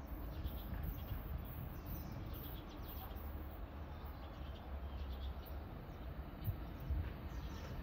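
Small birds chirping over a steady low rumble, with a couple of soft low thumps near the end.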